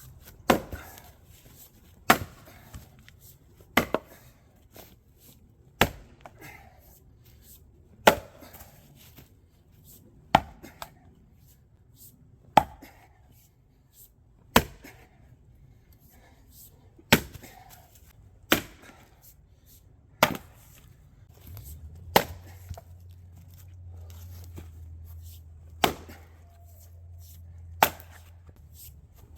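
Fiskars X25 splitting axe chopping maple firewood by hand: about fourteen sharp blows, roughly one every two seconds.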